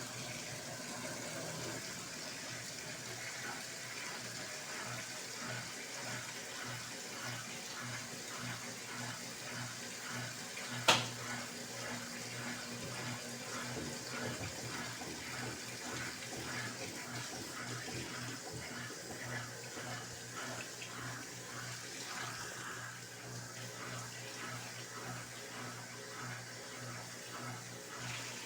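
Brastemp Clean 7 kg (BWC07) top-loading washing machine in its rinse cycle: water sloshing in a regular, repeating churn over a steady motor hum, with one sharp click about 11 seconds in.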